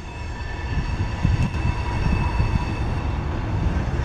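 Mixed freight train cars rolling through a curve with a low rumble that grows louder. A steady high-pitched squeal from the wheels on the curved track sits over the rumble.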